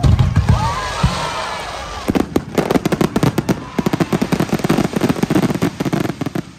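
Aerial fireworks going off: two heavy booms of bursting shells in the first second, then a dense, rapid crackle of many small bursts for about four seconds that stops suddenly.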